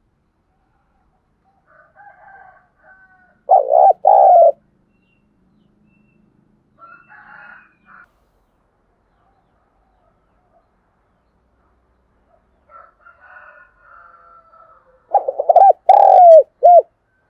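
Spotted dove cooing close up: a short two-note phrase about three and a half seconds in, then a phrase of about four notes near the end, with faint bird calls in between.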